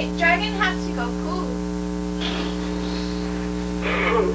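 Steady electrical mains hum on the recording, a set of constant buzzing tones, with short snatches of a voice in the first second, briefly mid-way and near the end.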